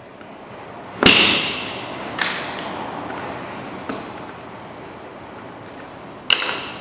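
Sharp, snapping clicks of hand tools at work on an RJ45 wall outlet: four in all, the loudest about a second in, another strong one near the end and two weaker ones between.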